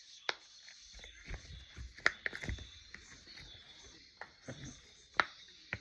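Silicone pop-it fidget toys being handled, with a few sharp clicks and a stretch of rustling about a second in.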